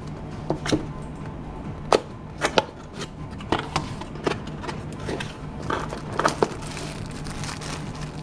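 A cardboard product box being handled and opened: a string of sharp taps and knocks from the lid and inner flaps, then a plastic bag crinkling near the end as the camera is lifted out. A steady low hum sits underneath.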